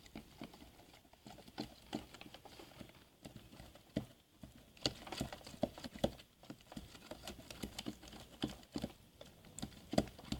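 A spoon stirring PVA glue and borax activator into slime in a tub: irregular clicks and knocks of the spoon against the tub, several a second.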